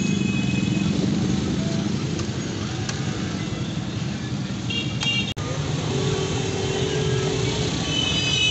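Busy road traffic: vehicle engines running steadily, with a few short high-pitched tones and a held tone near the end. The sound briefly drops out about five seconds in.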